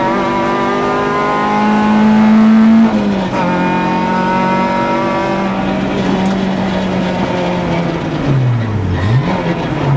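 Peugeot 106 Group A rally car's engine heard from inside the cabin at speed, held at high revs and rising a little before a brief lift about three seconds in. Near the end the revs swing down and back up several times as the car brakes and downshifts for a tight turn.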